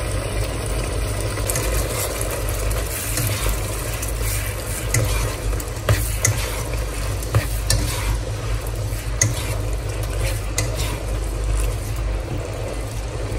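Nylon spatula stirring long beans and minced chicken through a simmering sauce in a wok, with scattered clicks and scrapes against the pan over a steady sizzle. A steady low hum runs underneath.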